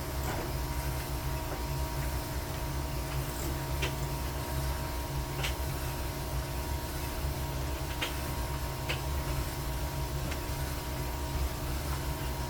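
Washing machine running: a steady low motor hum with a few faint clicks scattered through it.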